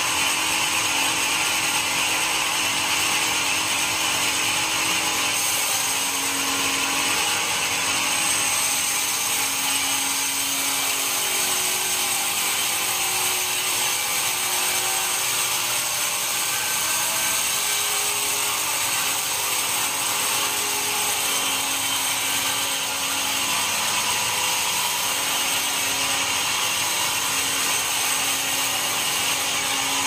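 Band sawmill running steadily, its blade sawing lengthwise through a large dry teak log.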